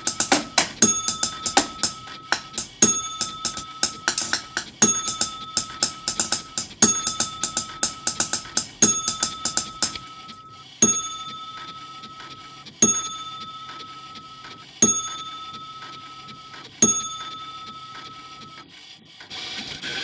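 Rhythmic percussion played with drumsticks on office objects, over a steady held tone that breaks and restarts about every two seconds. About halfway through the fast hits drop out, leaving one strong hit every two seconds, and the piece cuts off suddenly at the end.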